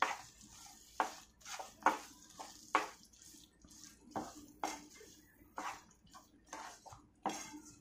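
Spoon or spatula stirring thick moong dal halwa in a pan, scraping and knocking against the pan in a dozen or so irregular strokes.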